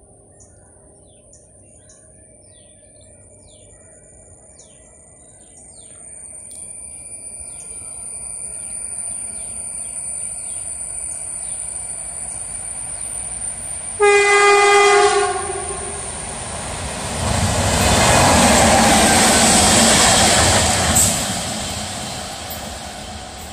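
An Indian Railways light locomotive approaches and sounds its horn once, a single note of about a second and a half. It then passes close with a loud rush of wheel and rail noise and clicks, which fades as it moves away.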